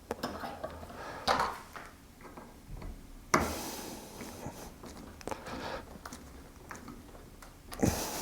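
Small metal parts and a hand tool being handled during connector assembly: scattered clicks and light knocks, with sharper knocks a little over a second in, about three seconds in and near the end.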